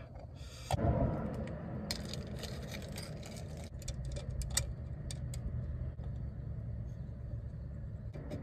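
Light clicks and taps of a Momo steering wheel being worked onto its hub adapter by hand, with a thump about a second in, over a steady low rumble.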